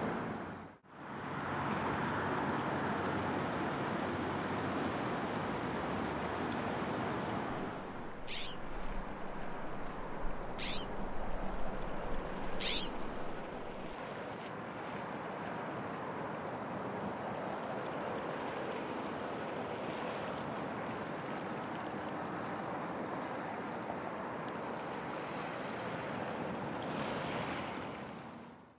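Steady rush of waves and water along the shore. Near the middle come three thin, high whistles, each sweeping steeply down in pitch, about two seconds apart.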